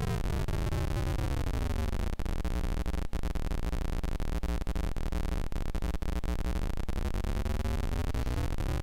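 Digital noise from a 4006 shift-register noise module clocked by a square-wave oscillator: a dense, buzzy hiss of pseudo-random square waves. As the clock rate is tuned down the noise slides lower, holds steady, then rises again near the end as the clock is turned back up.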